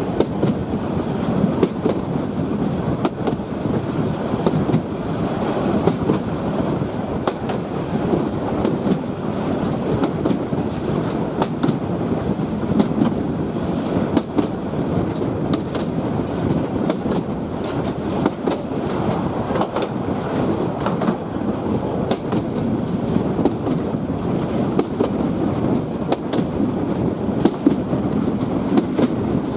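Bangladesh Railway passenger train running along the track: a steady rumble of wheels on rails, broken by frequent irregular clicks and rattles.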